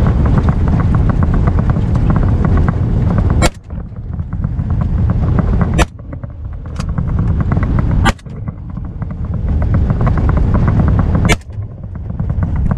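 Vehicle engine accelerating hard. Its loudness climbs and then drops back four times, and each drop comes with a sharp crack, as at a gear change. A smaller crack comes in between.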